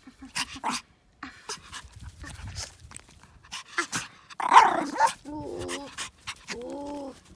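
A Petit Brabançon puppy playing and rolling in grass, with rustling and small clicks. About four and a half seconds in it gives a loud short vocal sound, followed by two short whines that rise and fall in pitch.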